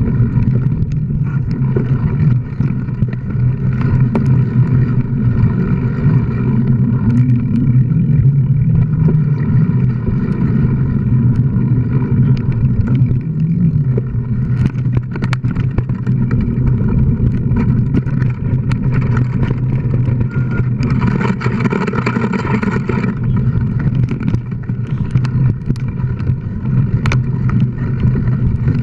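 Mountain bike riding fast over a dirt singletrack, heard through a mounted action camera: a steady low rumble and hum with frequent sharp rattles and knocks from bumps in the trail, and a brief louder hiss about three-quarters of the way through.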